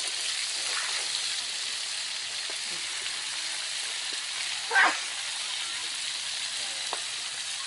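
Water-snake pieces frying in hot oil in a wok, a steady sizzle, with a spatula stirring through them. A short, louder sound stands out about five seconds in.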